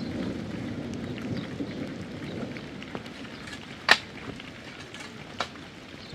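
Rain falling steadily, with scattered sharp taps of drops or drips, one loud tap about four seconds in.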